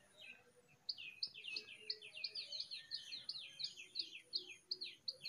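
A bird singing faintly: a rapid run of short, falling chirps, several a second, starting about a second in.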